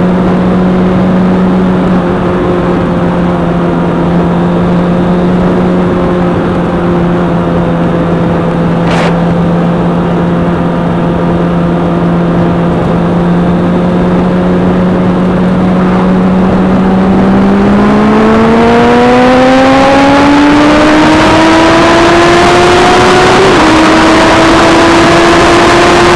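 Engine of the vehicle carrying an onboard camera, holding a steady note while cruising, then rising in pitch as it accelerates from about eighteen seconds in, with wind rush building. A faint click comes about nine seconds in.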